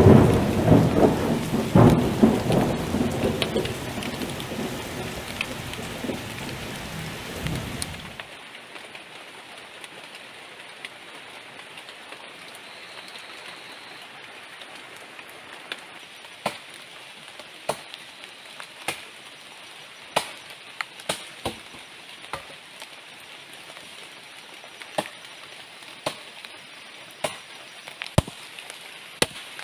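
Heavy rain with a low thunder rumble that fades, then cuts off abruptly about eight seconds in. After that a much quieter background with scattered sharp knocks, roughly one a second.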